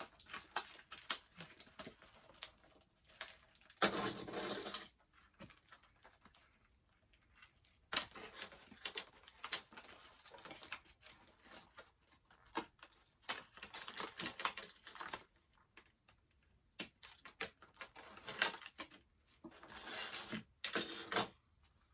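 Hands handling and unwrapping a doll's small accessories from their packaging: irregular rustling and crinkling with quick light clicks, in short stretches with pauses between.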